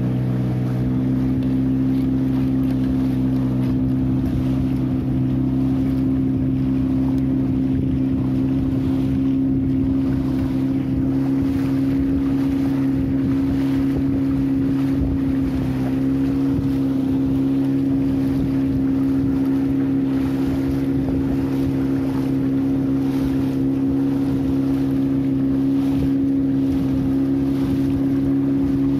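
A small boat's engine running steadily, edging up slightly in pitch about a second in and then holding an even pitch, with wind buffeting the microphone.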